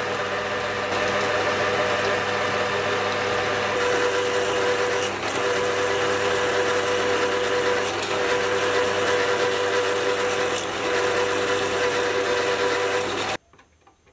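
Metal lathe running while a twist drill in the tailstock chuck bores through a spinning steel bar: a steady machine hum with the drill's cutting noise. There is a brief break about five seconds in, and the sound cuts off suddenly near the end.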